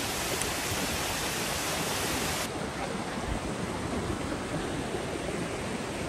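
Steady rushing of a glacier-fed waterfall pouring into its plunge pool. About two and a half seconds in, the sound changes abruptly and loses its highest hiss.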